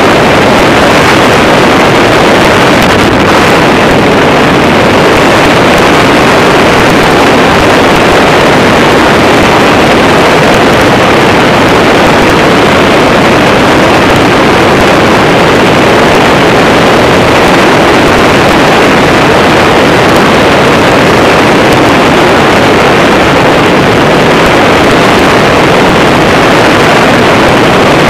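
Motorized hang-glider trike in flight: its engine and propeller run steadily under a loud, even rush of wind.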